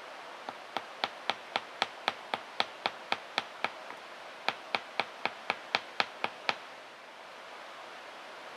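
A quick series of sharp, evenly spaced taps, about four a second, in two runs with a short break between them.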